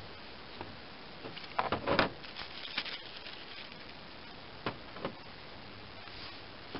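Small metal carburetor parts and screws clicking and tapping as they are handled and set down on a towel-covered bench: a quick cluster of clicks about two seconds in, then two single taps around five seconds.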